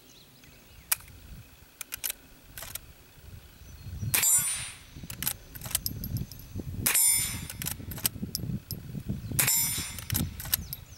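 Three shots from a Marlin Model 1892 lever-action rifle in .22 Long Rifle, about four, seven and nine and a half seconds in, each followed by a ringing metallic clang lasting about half a second.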